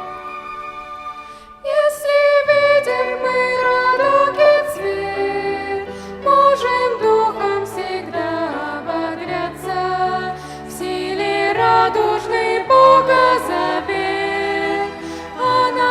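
A violin ensemble playing softly, then voices begin singing a hymn about a second and a half in, with the violins accompanying.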